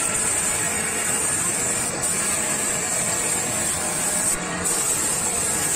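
Compressed-air spray gun hissing steadily as it sprays a black finish onto a board, with a short break about four and a half seconds in.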